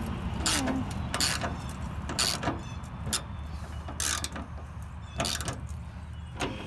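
Hand ratchet working a fastener in short strokes, each stroke a quick burst of clicks, about one a second, over a low steady hum.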